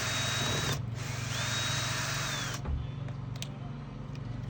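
Power drill running in two bursts with a short break between. The motor whine rises as it spins up and falls as it winds down, and the second burst stops a little past halfway.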